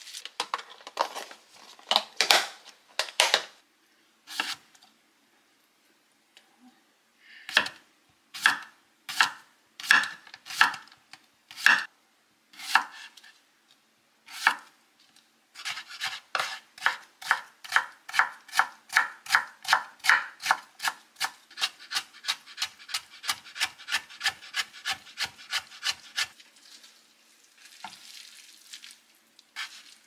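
Kitchen knife slicing a cucumber on a wooden cutting board: sharp knocks of the blade hitting the board, first spaced out, then a quick steady run of about four cuts a second.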